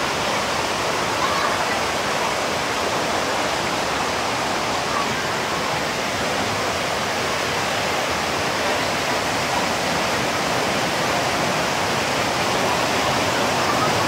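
Waterfall and a fast stream rushing over boulders: a steady, even wash of falling and tumbling water.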